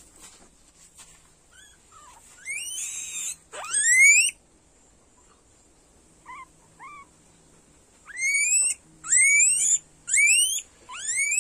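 Guinea pig squealing as it is handled: loud rising whistled squeals, a pair of short chirps in the middle, then squeals about once a second from about eight seconds in.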